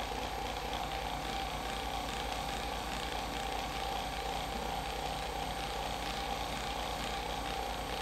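A small motor running steadily, a continuous hum with a fast, even low pulsing and a constant mid-pitched tone.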